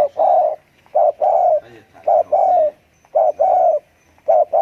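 Spotted dove cooing: a short note followed by a longer one, the pair repeated about once a second, four or five times.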